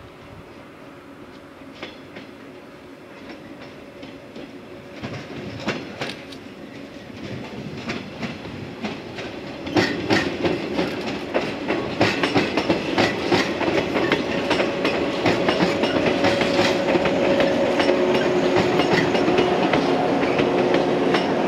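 JR 115-series electric multiple unit running past close by, its wheels clicking rhythmically over the rail joints. It grows louder from about five seconds in and is loudest from about ten seconds on as the cars go by, with a steady hum under the clicking.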